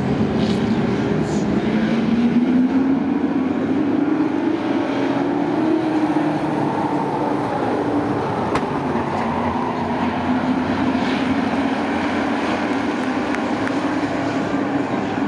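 Racing trucks' engines running laps on a short oval track, the engine note rising and falling as they accelerate and back off.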